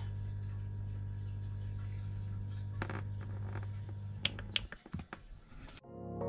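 Small rechargeable air pump for a live well running with a steady low hum. Its buttons click a few times, and after the last click, about four and a half seconds in, the hum stops as the pump is switched off. Music starts near the end.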